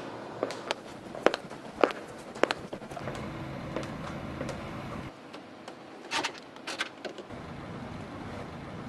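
Sounds of a car being readied: a run of sharp clicks about twice a second, then a low steady rumble for about two seconds that drops away. Two short hissing bursts follow, and a low rumble sets in again near the end.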